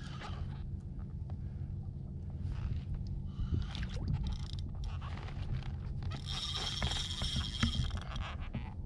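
Fishing reel working against a hooked fish: scattered clicks and rubbing from the reel and rod, then for about two seconds near the end a high, steady whir from the reel, over a steady low rumble.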